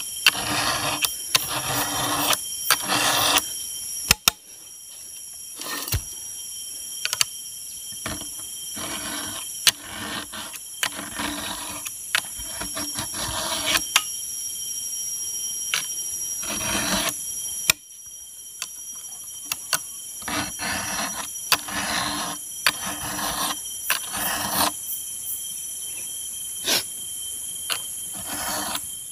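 Round chainsaw file rasping across the cutters of a Stihl 070's chain as it is sharpened by hand. The strokes come in uneven runs of roughly one a second, with short pauses between runs. A steady high-pitched whine runs underneath.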